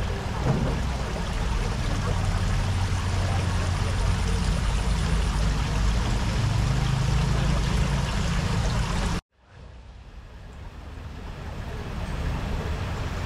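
Steady rushing noise with a heavy low rumble; it cuts off abruptly about nine seconds in, then fades back in more quietly.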